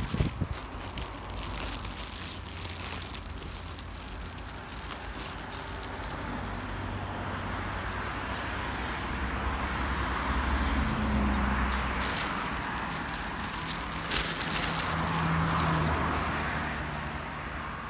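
Road traffic: vehicles passing on a nearby road, their engine and tyre noise swelling and fading over a steady low rumble, loudest around the middle and again near the end.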